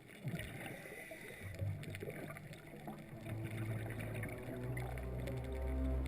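Water and boat noise with scattered clicks, then low held notes of background music fading in about a second and a half in and growing louder.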